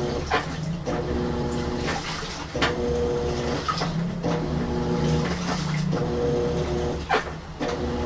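Old top-loading washing machine washing a duvet in water. Its motor hums in spells of a second or two, stopping and starting again, over a low rumble, with water sloshing and splashing in between.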